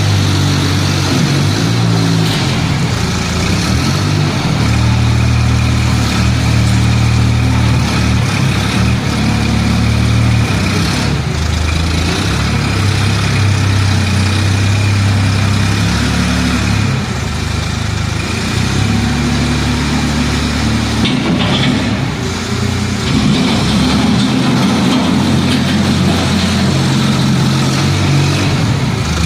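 Mini tractor engine running continuously under the towable backhoe loader, its pitch changing up and down every few seconds.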